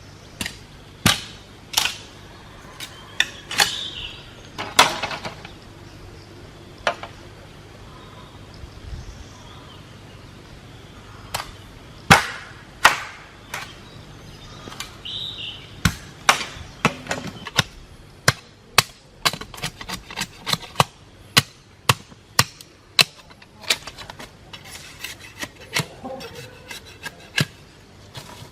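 Hammer blows on wood: scattered knocks at first, then a steadier run of about two to three blows a second through the second half.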